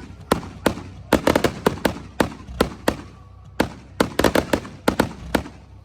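Aerial fireworks bursting, a rapid string of sharp cracks and bangs, some in quick clusters, each trailing a short echo.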